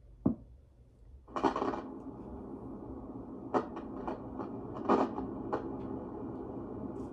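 A click as the Marsona 1200A analog sound conditioner is switched on, then about a second later its 'surf 1' sound starts: a steady, muffled hiss of filtered noise, its tone turned to the lowest setting so only the low end comes through. A few short clicks sound over it.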